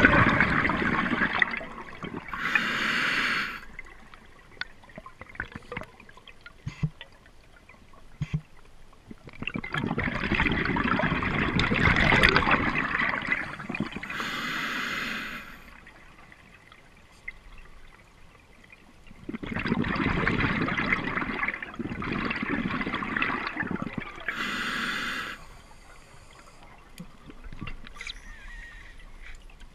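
Scuba regulator breathing underwater: long bursts of exhaled bubbles, each followed by a short, higher hiss as air is drawn through the regulator, about three breaths with quiet pauses between.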